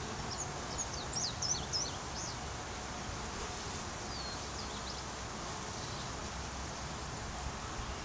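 A honey bee swarm clustered on a branch humming steadily. A quick run of high chirps sounds in the first couple of seconds, and a few more come about four seconds in.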